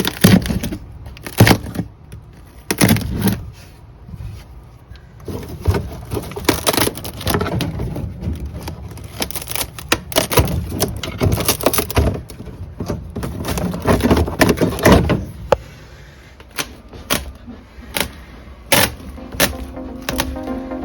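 Workshop clatter: irregular knocks, bangs and rattles of tools and loose parts being handled, some in quick clusters.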